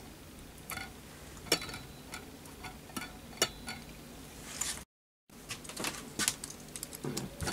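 Scattered light clicks and clinks of small brass and glass parts being handled on a bench, with a few sharper ticks. In the second half a glass clip-top jar spirit burner is picked up and its wire-clasp lid worked open, giving a run of quicker clinks.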